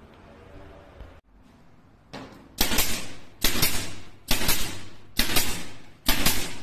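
Pneumatic nailer firing pins into a wooden window sash's glazing beads to hold the double glass. Five sharp shots, a little under a second apart, start about two and a half seconds in, each followed by a short fading hiss.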